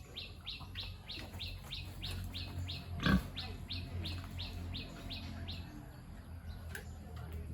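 A bird calling in a fast, even series of short high chirps, about three or four a second, which stop about two seconds before the end. Underneath is a low, steady grunting of pigs, and a single sharp knock comes about three seconds in.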